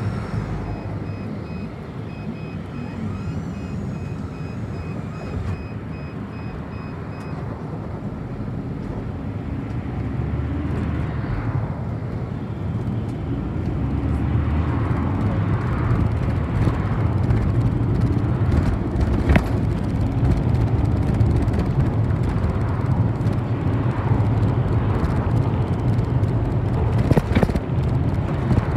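City bus heard from inside the passenger cabin: the engine runs low while standing, then grows louder as the bus pulls away and picks up speed, with road rumble. A couple of sharp knocks or rattles come later on.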